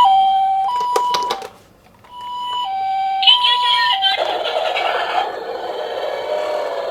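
A toy ambulance's electronic two-tone hi-lo siren, the Japanese ambulance "pii-poo": two tones alternating about every half second, with a few clicks. It stops briefly about a second and a half in and starts again, then gives way to a dense, rough noise for the last few seconds.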